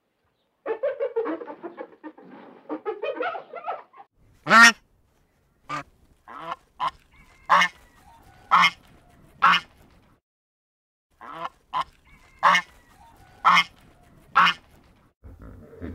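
Birds chattering in a dense overlapping gabble, then giving loud honking calls one after another, roughly one a second, with a pause of about a second and a half midway.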